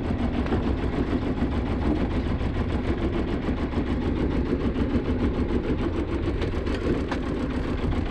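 Sailboat's auxiliary engine running steadily at low speed, an even drone.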